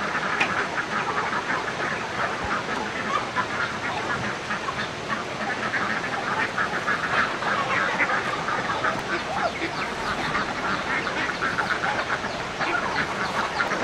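A dense, continuous chorus of many short, overlapping animal calls that packs the whole stretch without a break.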